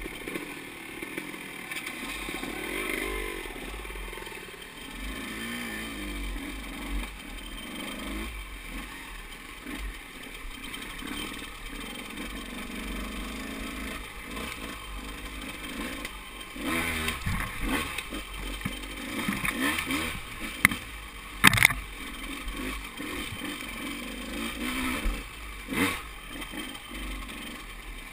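KTM 200 XC-W two-stroke single-cylinder dirt bike engine revving up and down at low speed on a rough trail. Clattering and knocks from the bike come through, the loudest a sharp knock about two-thirds of the way in.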